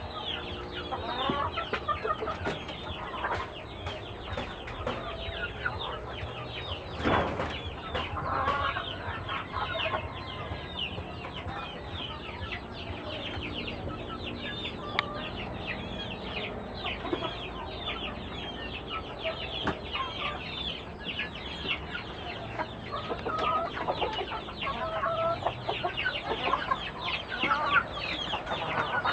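A flock of chickens clucking and calling, with many short, high, falling chirps running through it and one louder burst about seven seconds in.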